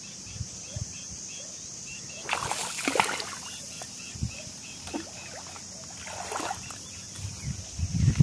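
Steady high-pitched drone of insects, with two short noisy rustling bursts about two and a half and six seconds in and a few low knocks near the end.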